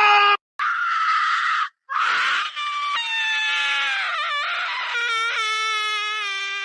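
Screaming sound-effect clips cut one after another. A short shriek is followed by a long, held, wavering scream that ends abruptly.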